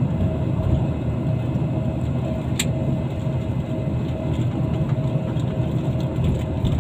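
Steady low rumble of a moving passenger vehicle heard from inside, with a faint steady hum above it and one sharp click about two and a half seconds in.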